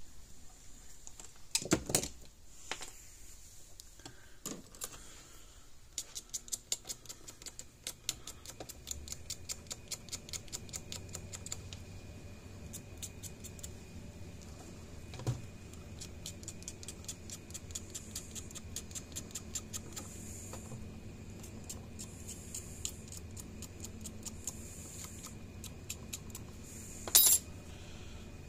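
Small metal parts and hand tools clicking and ticking as wire ends are stripped and fitted with spade connectors: a couple of louder clicks early, long runs of rapid light ticking, and one sharp snap near the end.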